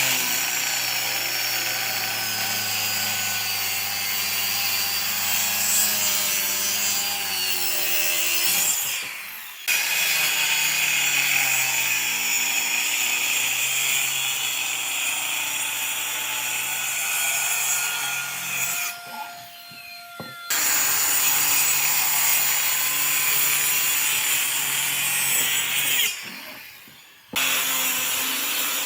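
An electric power tool running as it works wood, with a steady motor hum under the noise of the cut. The sound falls away three times and comes back abruptly each time.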